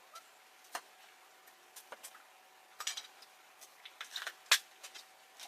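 Scattered light clicks and clinks of objects being handled, the sharpest about four and a half seconds in.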